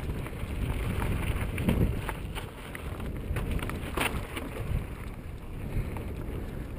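Mountain bike descending a rocky dirt trail: tyres rolling over dirt and stones with steady wind rumble on the microphone, and scattered rattles and knocks from the bike over the rough ground, the clearest about two seconds and four seconds in.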